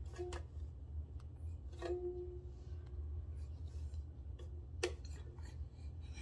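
Ukulele strings plucked by accident as a baby crawls over the instrument: a short note near the start, a note ringing for about a second around two seconds in, and a sharp twang near five seconds, with small scrapes and clicks of the body against the wood between.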